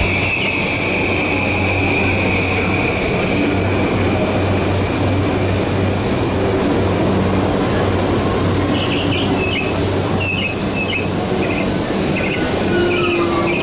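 Electric commuter train running along a station platform, with a steady low hum throughout. A high, steady wheel squeal fades out over the first few seconds, and short high squeaks come near the end.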